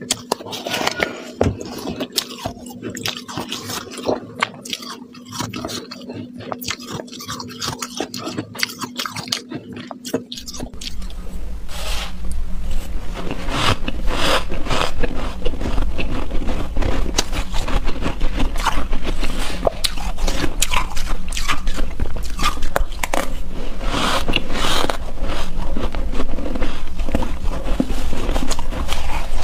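Close-miked mouth sounds of soft shaved ice being bitten and chewed, with soft crunches and a spoon scraping the bowl. About ten seconds in, the sound gets louder, and the crunching becomes denser over a steady low rumble.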